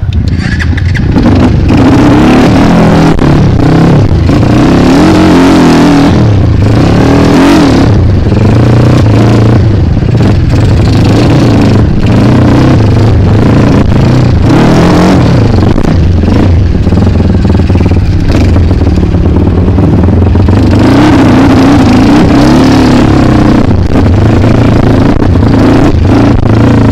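Single-cylinder KLX dirt bike engine revving hard under load off-road, its pitch rising and falling continually as the throttle is worked.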